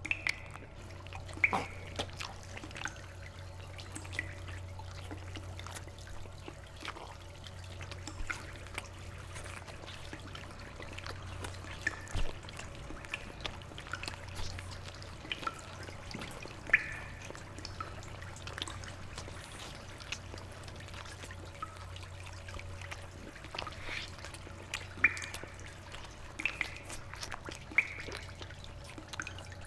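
Water dripping: single drops land at irregular intervals as short plinks, over a low steady hum that fades out about three-quarters of the way through.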